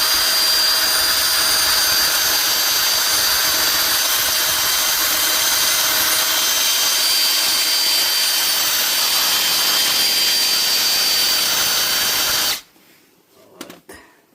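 Power drill spinning a brush at steady speed with a constant high whine, scrubbing the wheel hub clean; it cuts off suddenly near the end, leaving a few faint clicks.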